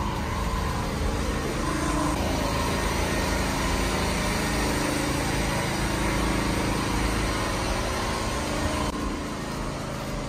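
Steady motor vehicle engine and road noise with a low rumble, a little quieter near the end.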